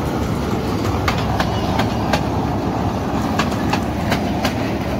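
Miniature park train's carriages rolling past close by: a steady low rumble with wheels clicking over the rail joints a few times a second.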